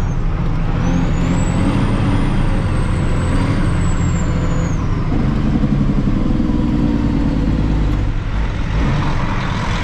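Silage truck's engine pulling hard at full throttle, heard from inside the cab, with a high whistle over the engine. The engine note shifts about five seconds in and drops near eight seconds, as gears are changed.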